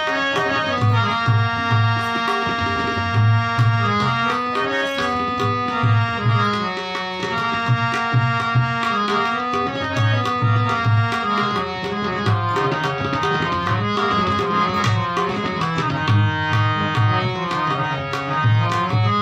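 Instrumental interlude of a Hindu devotional bhajan: tabla playing a steady rhythmic pattern of deep bass strokes under a sustained melody on harmonium.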